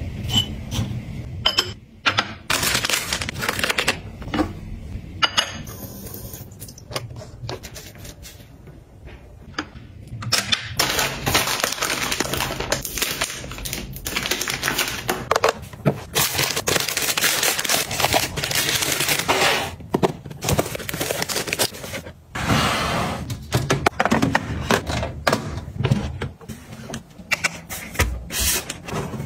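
Close-up handling sounds of toiletries and their packaging: plastic packs rustling and crinkling, broken by many sharp clicks and taps as boxes, lids and containers are handled and set down.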